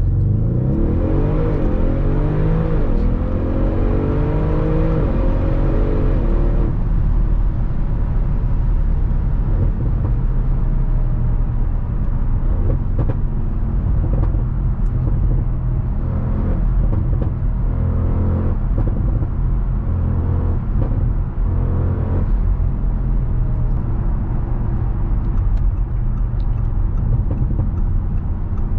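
2015 Audi RS6 Avant's twin-turbo V8 accelerating hard for about the first six seconds: the engine note climbs, drops at a couple of upshifts and climbs again. It then settles into a steady low drone while cruising.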